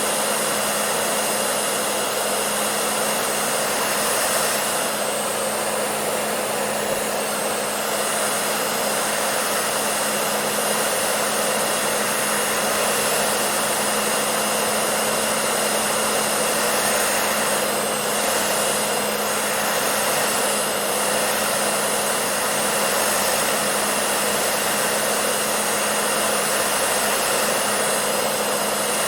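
Hair dryer running steadily: a constant rush of blown air over a steady motor hum.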